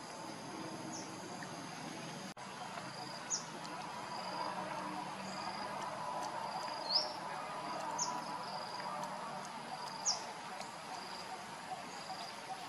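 Outdoor insect drone: a steady high buzzing, like crickets or cicadas. A bird gives four short high chirps over it, about three, seven, eight and ten seconds in.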